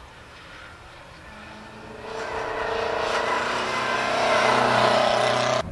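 Vintage racing car's engine running hard up the hill climb, a steady note growing louder as the car approaches and rounds the bend, loudest near the end before it cuts off suddenly.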